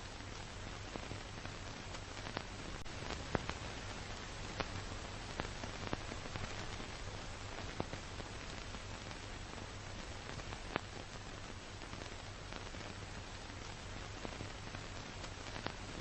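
Steady hiss with a low hum and scattered crackling clicks and pops, the surface noise of a worn old recording.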